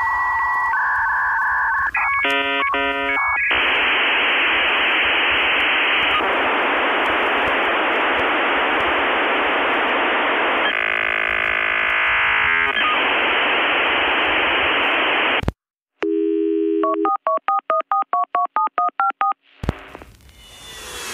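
Electronic telephone-line tones. A few steady beeps and a quick run of dialing tones come first, then a long steady hiss, a short silence, and a run of alternating beeps. Music comes in near the end.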